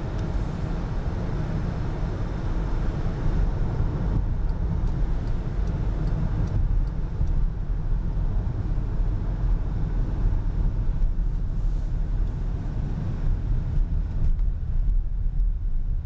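Car driving at motorway speed, heard from inside the cabin: a steady low rumble of engine and tyres on a wet, slushy road surface. A lighter hiss over it eases after about four seconds.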